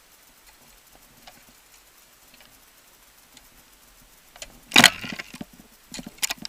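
Ice axe swung into waterfall ice: one loud, sharp strike about three-quarters of the way in, trailed by a brief clatter, then two or three lighter knocks near the end. Faint scattered ticks come before the strike.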